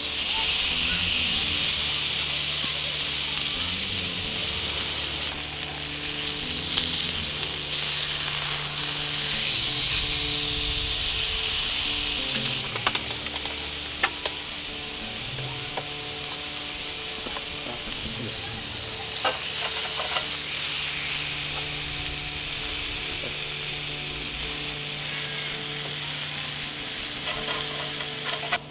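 A steak sizzling loudly as it sears on the hot iron griddle plate of a Snow Peak Seppoen gas grill burner. The hiss is strongest just after the meat hits the plate and eases a little over the following seconds, with a few light clicks of metal tongs midway.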